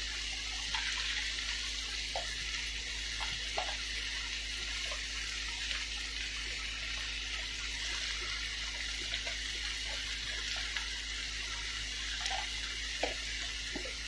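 Kimchi sizzling in a frying pan as its juice cooks off: a steady hiss with scattered small pops.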